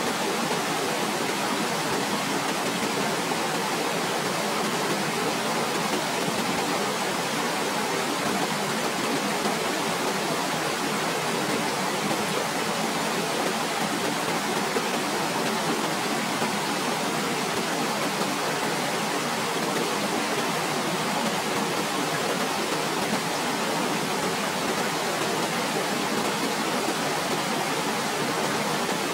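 A waterfall's steady, even rush of falling water, unchanging throughout.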